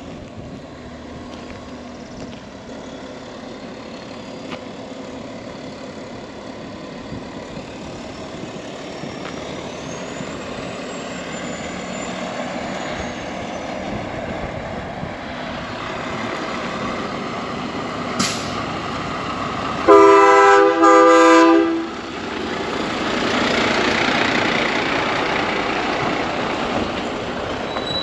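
Peterbilt 389 dump truck's Cummins diesel running as the truck drives across a gravel yard, growing louder as it comes near. About two-thirds of the way through, its train horn sounds two blasts close together lasting about two seconds, the loudest sound. Then the truck passes close by with a rising rush of engine and tyre noise.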